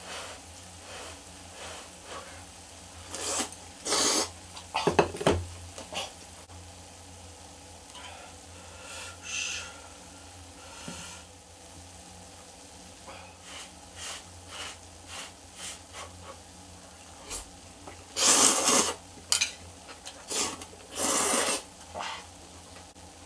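Food sizzling in a pan on a portable gas stove, with chopsticks clicking against a bowl and several loud noodle slurps, the loudest two near the end.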